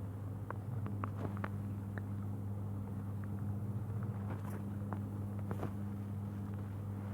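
A steady low hum with a second, higher hum tone joining about a second in, and scattered light clicks or taps over it.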